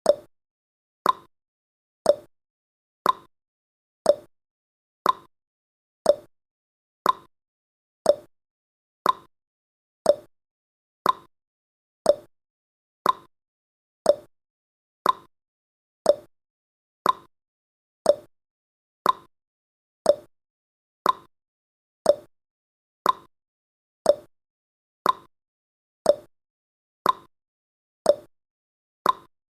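Countdown timer's clock-tick sound effect: a short, sharp tick once a second, each fading quickly, marking off the seconds.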